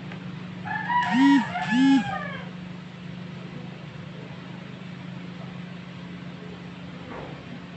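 A chicken calling outside: two loud notes that rise and fall, about a second in, over a steady low hum.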